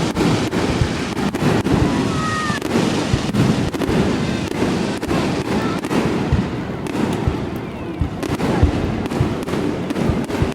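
Fireworks display going off without pause, a dense stream of overlapping bangs and crackles.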